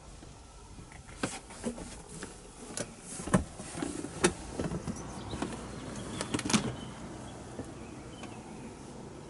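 A run of sharp knocks and clicks, about a dozen, from someone moving through a camper van's interior and handling its fittings, over a low steady hum.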